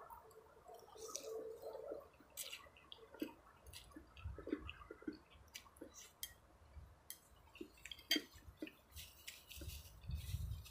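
A person eating spicy chicken noodle soup close to the microphone: slurping from a spoon and chewing, with many small irregular clicks and wet mouth sounds.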